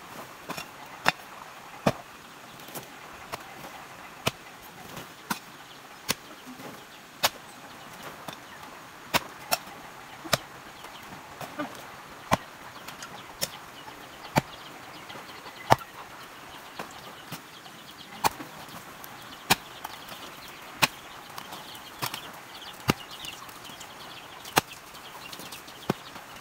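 Metal hoe blade chopping into hard clay soil, one sharp thud roughly every second in an uneven working rhythm.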